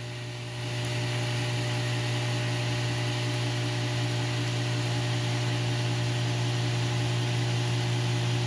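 Stainless-steel submersible pump running under water in a pump tank, a steady electric hum with a hiss over it as it pumps the water level down; it gets a little louder about half a second in.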